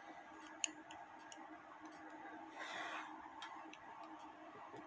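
Faint, irregular clicks of small metal clock parts being handled while a wheel is swapped onto a music-box governor part, the sharpest click less than a second in, with a brief rustle around three seconds in over a low steady hum.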